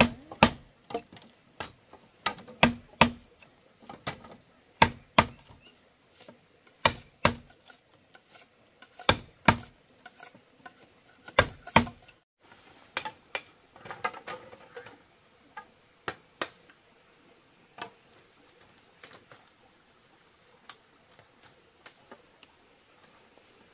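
Bamboo being struck with a hand tool: irregular sharp wooden knocks, often two in quick succession. They come thick and loud for about the first half, then grow sparser and fainter.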